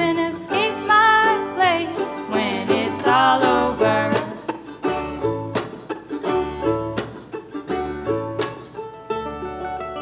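Live acoustic band music on plucked string instruments. A wavering melody line with vibrato leads for the first few seconds, then plucked and strummed strings carry on in a steady rhythm.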